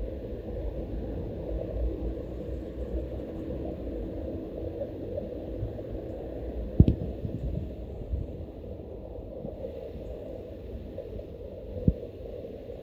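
Steady low outdoor background rumble with a faint hum, broken by two sharp knocks, the louder about seven seconds in and a lighter one near the end.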